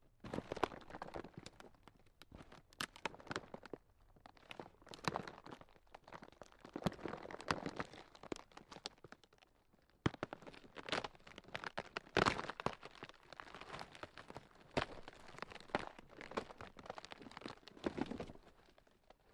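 Ground cracking: a dense run of irregular crackles and crunches that come in clusters, swelling and fading every second or two.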